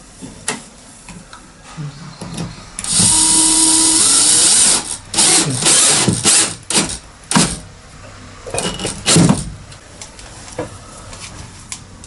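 Power drill running in bursts: one run of about two seconds, then several short bursts and a couple more near the end, as holes are drilled or screws driven for panel fixings.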